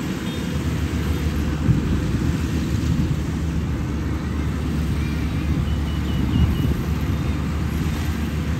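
Zoomlion FH100E rice combine harvester running steadily as it cuts rice, a constant low engine drone.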